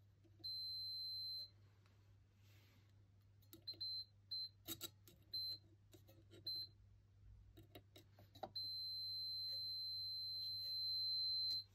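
Digital multimeter's continuity buzzer beeping, one high steady tone: a beep of about a second, then several short broken beeps with sharp clicks as the probe tips touch and slip off the metal contacts, then one steady beep of about three seconds. The steady beep, with the meter reading zero, signals an unbroken connection from the plug pin through the new wiring to the lampholder contact.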